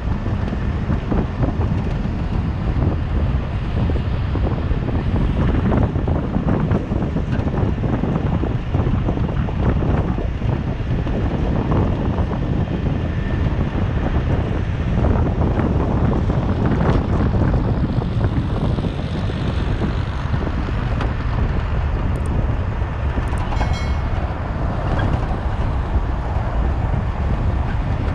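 A car driving along a road: a steady low rumble of tyre and road noise with engine, and wind buffeting the microphone.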